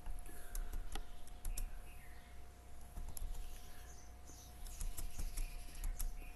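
Irregular clicks and taps of a computer keyboard and mouse, over a faint steady hum.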